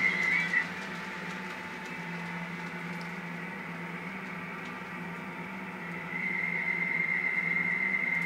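Märklin model railway running: a steady low hum throughout, with a high steady tone in the first half second that returns from about six seconds in and ends in a short warble.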